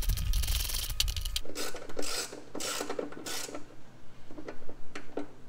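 Hand socket ratchet clicking as it tightens the mounting bolts of a new spindle assembly in a steel mower deck: rapid clicking at first, then slower separate strokes about every half second.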